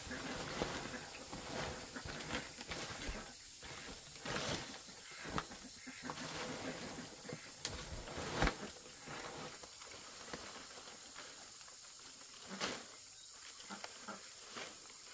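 Dry palm-leaf thatch rustling and crackling as it is handled and laid on a roof, with a few sharper cracks and knocks.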